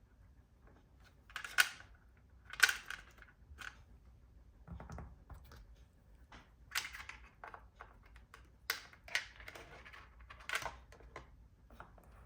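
Irregular sharp clicks, taps and short scrapes of small plastic and metal laptop parts being handled, with the loudest clicks about 1.5 and 2.7 seconds in.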